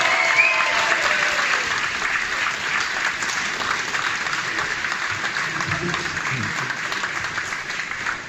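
Audience applauding, a dense patter of many hands clapping that slowly dies down.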